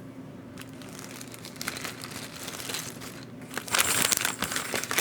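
Crinkling and rustling of plastic packaging being handled, getting much louder about three and a half seconds in, over a faint steady hum.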